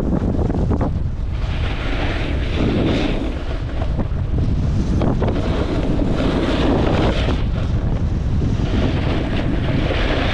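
Wind buffeting the camera microphone as a snowboard runs down a groomed slope. Over the steady rumble, the board's edge scrapes across the snow in swells, each lasting a second or two, as it carves turns.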